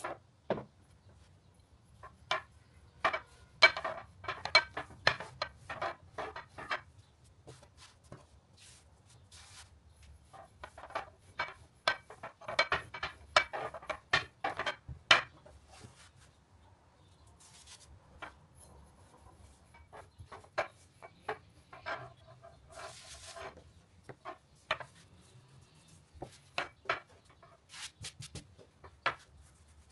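Long, thin rod rolling pin clacking and knocking against a hard tabletop as yeast dough is rolled out, in irregular clusters of sharp clicks with a few short rubbing hisses in between.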